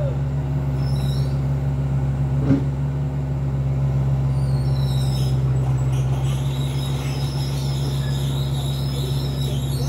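Engine running steadily at a low, even speed, with a faint high-pitched squeal joining in about halfway through.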